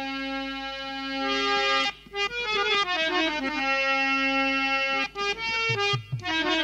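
Harmonium playing an instrumental interlude of a folk ragni: long held notes, then a falling run of short notes about two seconds in, then held and short notes again.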